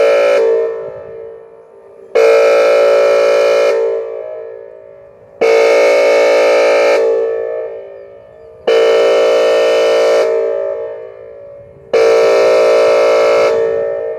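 Whelen outdoor warning siren sounding its air horn tone in a weekly test: a series of loud, steady-pitched horn blasts about a second and a half long, repeating roughly every three seconds. Each blast fades out slowly over a second or so.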